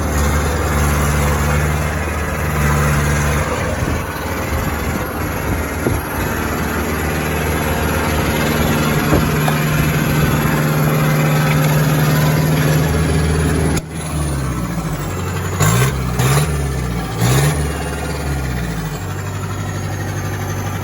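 Hitachi EX150 excavator's diesel engine running steadily, then, about two-thirds in, revved up and down three times before settling back to a lower, steady idle.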